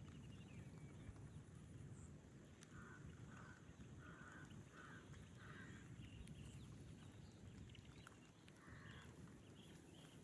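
A bird giving a faint run of five short, harsh calls about half a second apart, and one more near the end, over a low steady rumble.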